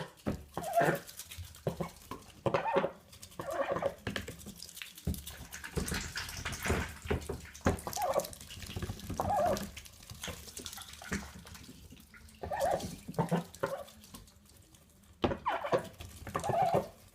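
Ducks dabbling lettuce in water bowls: their bills splash and clap in the water in quick irregular strokes, with short soft calls now and then.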